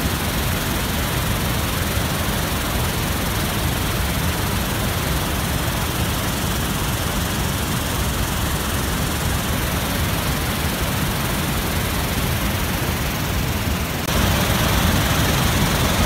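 Waterfall on a large river: heavy white water pouring over rocks in a steady, loud rush, which steps up suddenly near the end.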